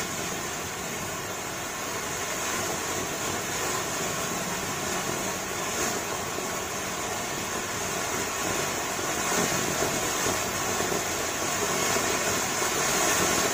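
Tri-colour ground fountain firework (anar) spraying sparks with a steady hiss, getting somewhat louder in the last few seconds.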